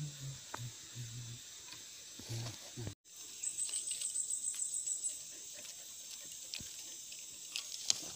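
Insects buzzing high and steady in the background, with low voices murmuring for the first few seconds; after a break, an insect chirps in a fast rhythm of about eight pulses a second for a second and a half, and a sharp click comes near the end.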